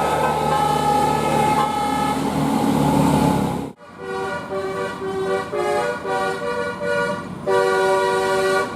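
Basuri 'telolet' multi-tone bus horn playing a melody of held and short notes over a running bus engine. It breaks off sharply about four seconds in, then a second telolet tune of short stepped notes follows, ending on a long held note.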